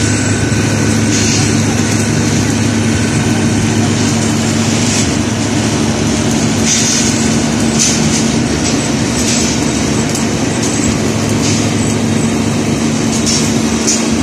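Heavy diesel machinery running with a steady low drone, broken every second or two by short bursts of high hiss.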